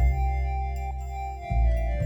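Instrumental background music: held chords over a deep bass, with a chord change about one and a half seconds in.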